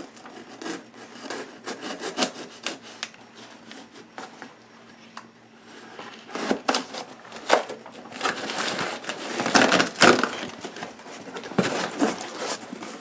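Knife cutting packing tape and cardboard on a shipping box: a run of irregular scraping and rubbing strokes with small knocks, getting busier past the middle.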